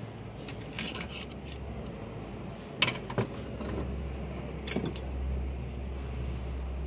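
Steel hand tools, a ring spanner and a screwdriver, clinking against the rocker adjusters and camshaft of an open diesel cylinder head during a valve-clearance adjustment: a few sharp metallic clinks, the loudest two about three seconds in and another cluster near five seconds. A low steady hum grows louder about halfway through.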